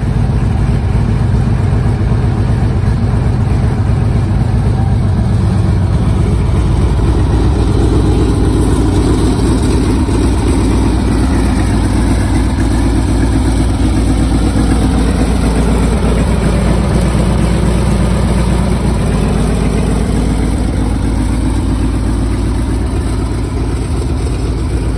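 An M3A1 Stuart light tank's Continental W670-9A seven-cylinder radial engine idling steadily and loudly. Its pitch sags a little past the middle and then rises again.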